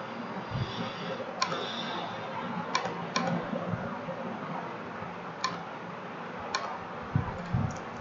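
Computer mouse clicking: about five sharp single clicks spaced irregularly, over a steady faint hiss.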